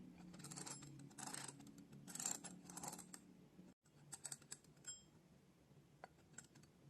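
Stainless steel mechanical kitchen timer being turned clockwise by hand: faint clicking and ratcheting of the dial in several short runs over the first three seconds, then a few scattered clicks.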